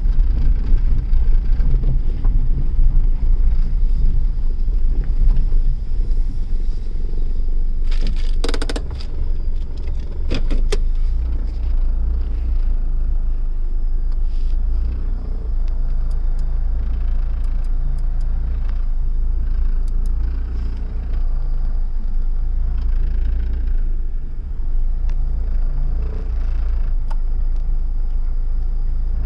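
Hyundai Santamo's engine idling at about 1000 rpm while the car stands still, heard from inside the cabin as a steady low hum. A short jingle and a few clicks come about eight to ten seconds in.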